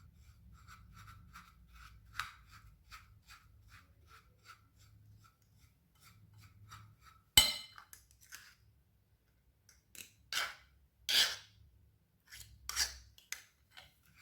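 A utensil scraping against a bowl in an even rhythm of about three strokes a second, mixing ground fenugreek into beaten egg yolks. About halfway through the rhythm stops and a few louder separate scrapes and knocks follow.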